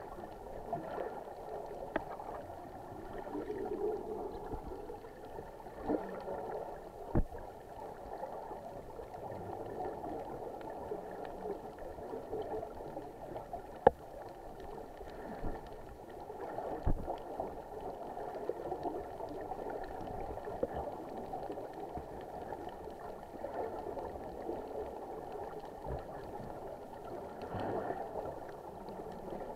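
Muffled underwater bubbling and gurgling from snuba divers' exhaled air, a steady wash broken by a few sharp clicks.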